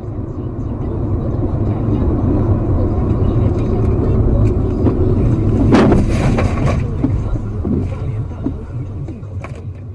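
Road and engine noise inside a car travelling at highway speed, a steady low rumble. About six seconds in, a loud burst lasting about a second rises over it, and a few sharp clicks follow near the end.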